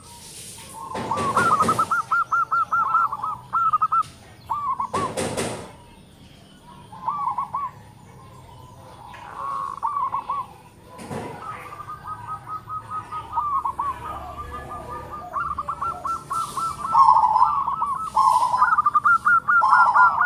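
Zebra doves (perkutut) cooing in runs of rapid, rippling staccato notes, with two birds calling over each other near the end. Two short, louder noisy sounds cut in about one and five seconds in.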